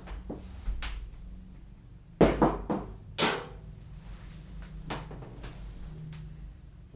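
Hard parts being handled: a series of knocks and clicks, the loudest a quick clatter about two seconds in and another knock about a second later.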